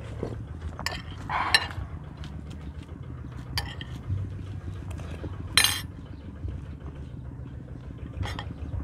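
Metal spoon clinking against ceramic plates and bowls as food is scooped during a meal: about five short, sharp clinks, the loudest a little past the middle.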